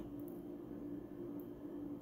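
Quiet room tone in a pause between speech, with a faint steady hum.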